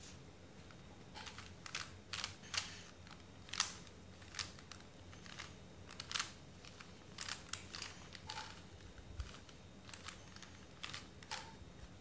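A 3x3 Rubik's cube being turned by hand: a run of irregular plastic clicks as the layers are twisted, starting about a second in and sometimes coming several in quick succession.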